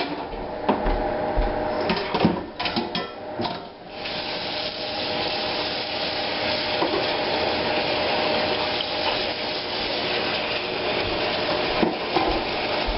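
Plastic colander and dishes clattering in a stainless-steel sink, then from about four seconds in a kitchen tap running steadily into a frying pan.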